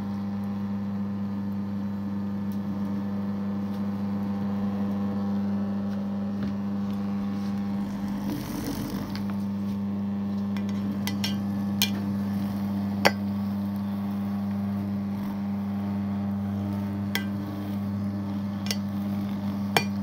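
A steady electric hum, as of a kitchen appliance's motor running, with a few sharp clinks and knocks of utensils in the second half.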